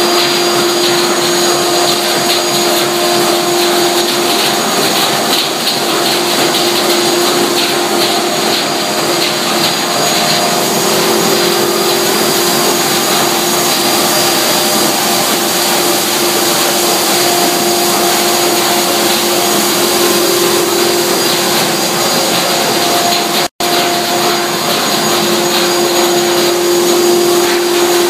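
Dust-extraction web cleaner on a corrugated-board line running at full production speed: a loud, steady rush of suction air through its extraction hoses, with a steady hum and faint high whistles in it. The sound cuts out for an instant about 23 seconds in.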